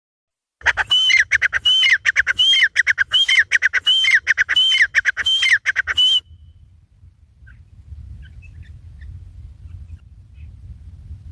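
Francolin (teetar) calling: a loud phrase of rising and falling high notes, repeated about eight times in quick succession, that stops abruptly about six seconds in. A faint low rumble follows.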